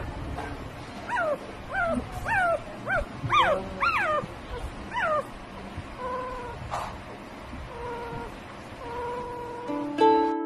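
Very young Pomeranian puppy whimpering: a series of short, high-pitched squeaks that fall in pitch, about two a second, then softer, flatter whines in the second half.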